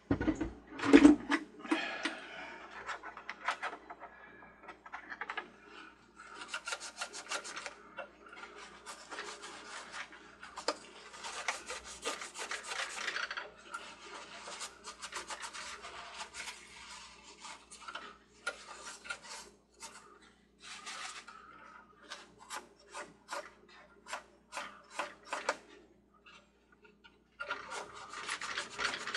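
Paper towel scrubbing the metal contact rotor on the carousel's circuit board, in runs of rubbing strokes broken by short pauses, with a string of short separate strokes near the end. The rotor is being cleaned because it is not making a good connection. A loud knock comes about a second in.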